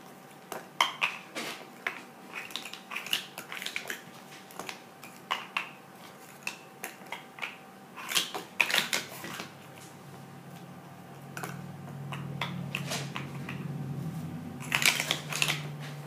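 Plastic sport-stacking cups (Speed Stacks) clacking rapidly as they are upstacked into pyramids and downstacked during a timed stacking run, in quick bursts of sharp clicks with the busiest clatter near the middle and just before the end.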